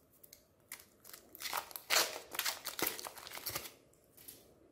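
Foil wrapper crinkling and crackling as it is peeled by hand off an umbrella-shaped ice cream bar, a dense run of crackles loudest in the middle that thins out to a few near the end.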